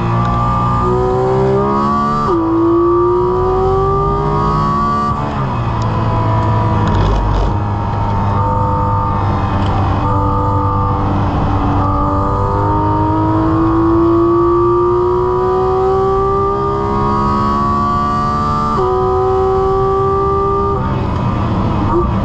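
Porsche 718 Cayman GT4 RS's 4.0-litre naturally aspirated flat-six under hard track driving, heard from inside the cabin. The engine note rises and falls with braking and gear changes, climbs slowly for several seconds under full acceleration, then drops sharply at an upshift near the end.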